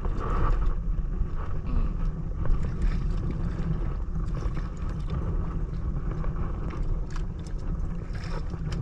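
Strong wind rumbling on the microphone, with scattered light clicks and knocks over it.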